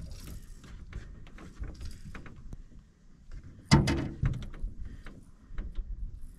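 Knocks, clicks and rattles of a landing net and gear against an aluminum boat's deck, with one loud thump a little before four seconds in as the net is set down.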